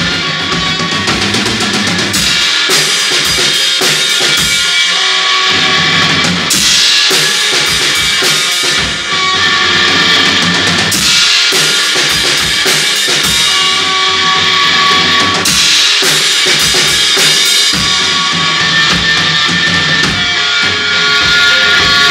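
Loud, noisy garage-rock band jam: a drum kit pounding on bass drum and snare under a distorted electric guitar and bass guitar, with a big cymbal crash every four to five seconds.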